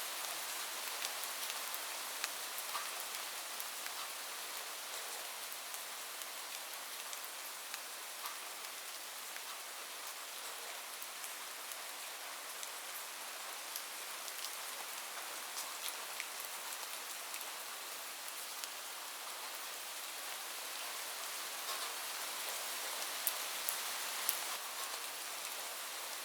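Steady rain on a roof: an even hiss sprinkled with sharp ticks of single drops, growing a little louder near the end.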